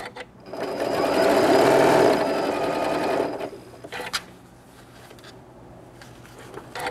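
Electric sewing machine stitching a quarter-inch seam along a folded fabric tie. It runs steadily for about three seconds and then stops. A few sharp clicks come around it, one at the start, one about four seconds in and one near the end.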